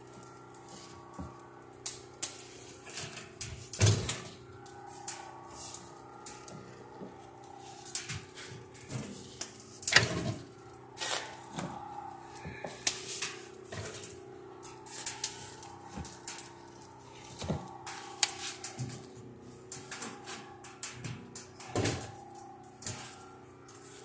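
Wood fire in a steel 55-gallon drum kiln, with irregular crackling and popping and sharp knocks of wood being loaded through the door, a few of them loud. A steady low hum runs underneath.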